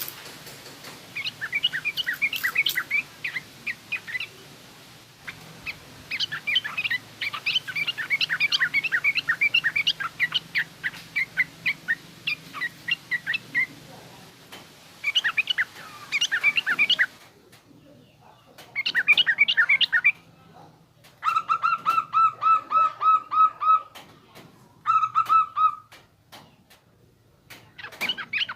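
Yellow-vented bulbul (trucukan) calling in bursts of rapid, rough chattering chirps separated by short pauses. In the later part comes a run of quick, evenly repeated lower notes.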